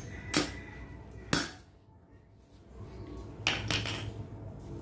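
Hammer striking a Tehhi ST18 manual concrete nailer to drive a short nail into a hard concrete block: two sharp metallic knocks about a second apart, then a softer pair of knocks about three and a half seconds in. The concrete is too hard for the nail to be driven fully home.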